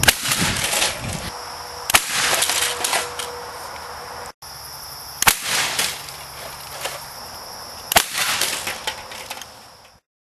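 Four sharp bangs from a PVC spud gun firing and the potato slamming into a DVD player's metal case, each trailing off over about a second. The sound fades out near the end.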